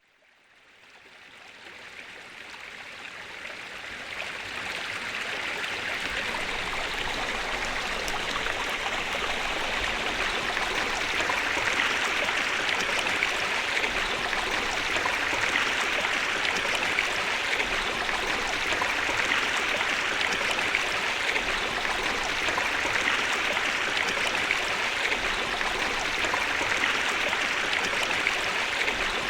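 Steady rushing water, fading in from silence over the first few seconds and then holding level.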